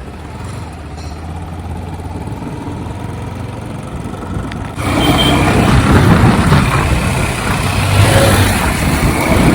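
Bajaj Pulsar NS160 motorcycle engine running on the move, a steady low hum. About five seconds in, a loud rushing noise cuts in and stays.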